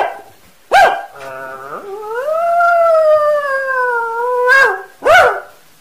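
A dog yelping and howling: two short yelps, a whine rising into a long wavering howl of about two and a half seconds, then two more yelps near the end. These are the cries of a dog that has just been caught.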